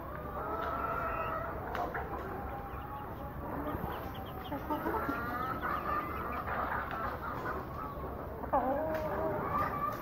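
Aseel chickens clucking and calling over one another, many short overlapping calls, with a sharper squawk that jumps up and then drops in pitch near the end.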